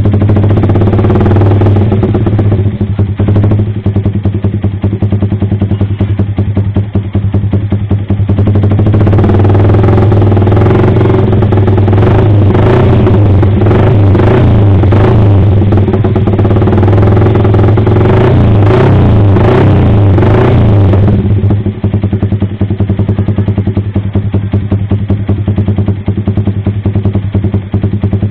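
Yamaha R15 V3's 155 cc single-cylinder engine running through an AR Austin aftermarket exhaust. It idles, is revved repeatedly with sharp throttle blips from about a third of the way in, and settles back to idle for the last several seconds.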